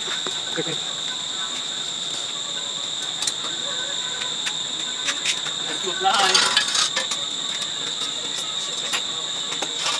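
Steady high-pitched drone of insects throughout, with scattered light metallic clicks and a short clatter of metal scraping and knocking about six seconds in, as a spiked metal tiller wheel is handled on a concrete floor.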